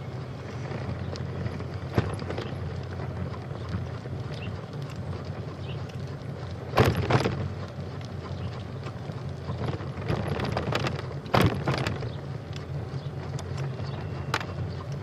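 Steady low wind rumble on the microphone while moving along a trail, broken by a few short clattering knocks: one about two seconds in, a louder cluster around seven seconds, and another around eleven seconds.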